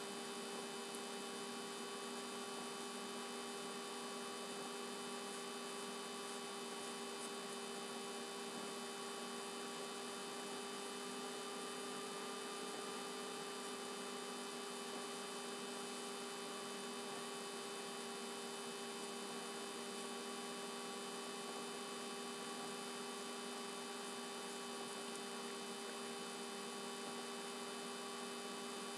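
Steady electrical hum with several fixed tones over a constant hiss, unchanging throughout; no other sound stands out.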